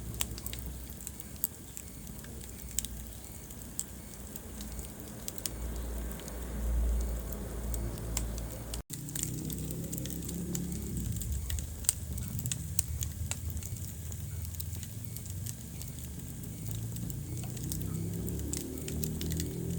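Wood fire burning in a fireplace: frequent sharp crackles and pops from the burning logs over a steady low rumble of flames, with one louder pop about twelve seconds in. The sound cuts out for an instant about nine seconds in.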